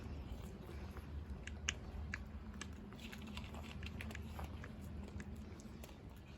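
Cats eating dry food: an irregular scatter of sharp crunches over a steady low rumble.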